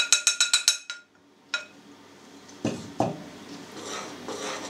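A bowl tapped quickly, about eight ringing taps in the first second, as flour is knocked out of it into the mixing bowl, with one more tap a moment later. Two dull thumps follow as the bowl is set down on the table, and near the end comes the scraping of a spoon stirring flour into the yeast water.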